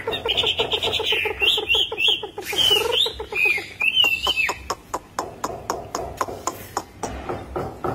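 Caged Chinese hwamei singing. It gives a quick run of short repeated notes with high, bending whistled phrases over them, then a series of short sharp clicking notes, about four or five a second.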